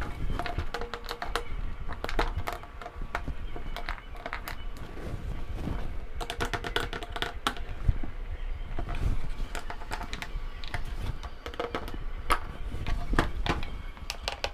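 Plastic car door trim and its loose retaining clips clicking and rattling in quick, irregular runs, with a dense burst of clicks about halfway through. The clips are worn and have free play, which is the cause of the trim rattle.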